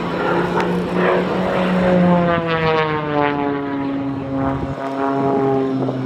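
Edge 540 aerobatic plane's six-cylinder piston engine and propeller running at high power as it pulls up into a vertical climb. Its tone slides steadily down in pitch from about two seconds in.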